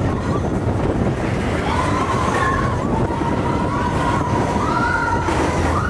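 Mine-train roller coaster rumbling along its track, with riders yelling over it and one long high held cry from about two seconds in.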